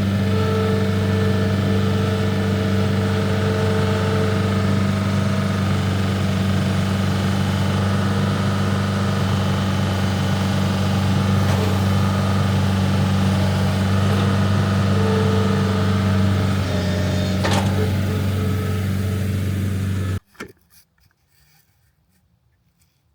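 An engine idling steadily at an even speed, then shut off about twenty seconds in, cutting off suddenly.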